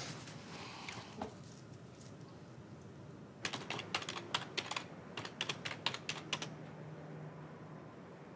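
Typing on a computer keyboard: a quick run of key clicks starting a few seconds in and lasting about three seconds, then stopping.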